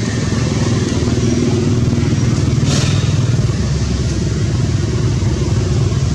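An engine running steadily with a low rumble, and one short sharp hiss about halfway through.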